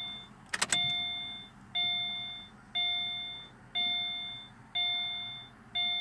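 2015 Subaru Forester's dashboard warning chime, ringing about once a second, each ding fading away before the next; it is the door-open warning, sounding with the ignition on and a door open. A quick cluster of sharp clicks comes about half a second in.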